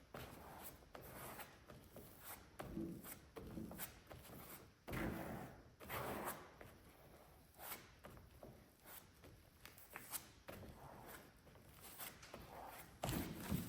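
Fiberglass-specific Vette body filler being mixed by hand: a quiet run of irregular scrapes and light knocks.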